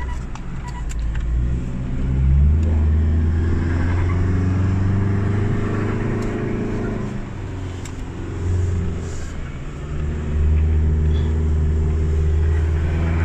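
Car engine pulling up a steep, winding mountain grade, heard from inside the cabin. The revs climb about two seconds in, ease off after about seven seconds, and climb again near ten seconds.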